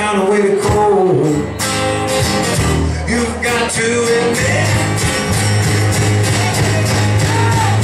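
Live band music: a strummed acoustic guitar and drums, with a man singing, his voice gliding between held notes in the first half.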